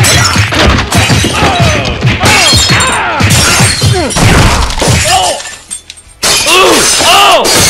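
Bar-fight sound effect: glass shattering and things breaking amid a string of short shouts and grunts, with a brief lull about five seconds in.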